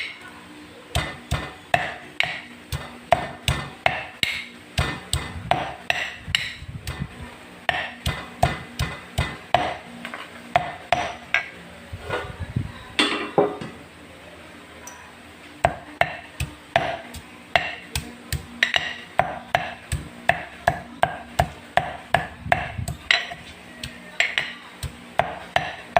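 Marble pestle pounding sliced oregano leaves in a mortar to crush out their juice. The strikes come steadily at about two a second, with a short pause about halfway through.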